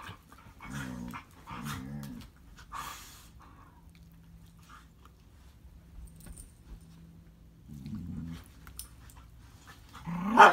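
A dog growling low in short bouts, about three times. Just before the end comes a louder, sharper cry that rises and falls in pitch.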